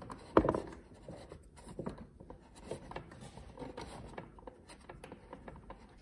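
Hands working a spark plug loose and out of a 50cc scooter engine through a plastic access hatch: one sharp knock about half a second in, then light scraping and rubbing.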